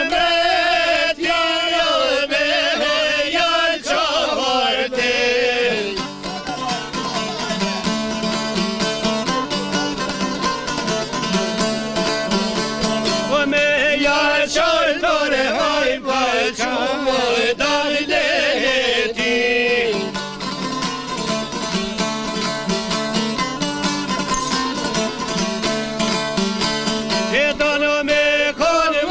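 Albanian folk song: a voice singing a wavering, ornamented melody over fast, steady strumming on long-necked plucked lutes. The voice drops out for instrumental stretches, from about six to thirteen seconds in and again after about twenty seconds, and comes back near the end.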